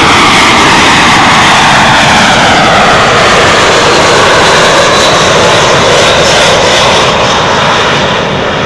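Airbus A320 airliner's jet engines on landing approach, passing close overhead: a loud rushing roar with whines that slide down in pitch as it goes by, easing slightly near the end.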